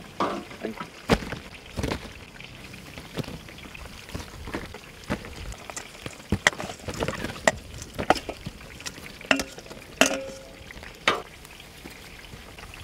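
Pork sizzling in a frying pan, with irregular sharp clicks and knocks of a utensil against the pan.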